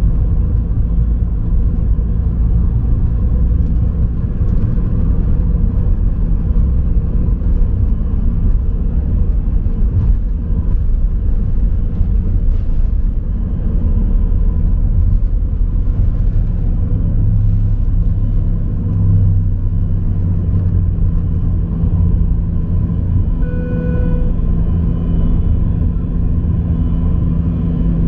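Inside the cabin of an Airbus A319 at takeoff: steady jet engine noise with a heavy runway rumble that eases about halfway through as the wheels leave the ground, then continues as the aircraft climbs. Near the end a brief tone sounds.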